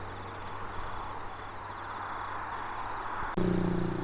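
A motor hums steadily under an outdoor background hiss. About three and a half seconds in, a louder, higher-pitched motor hum starts abruptly.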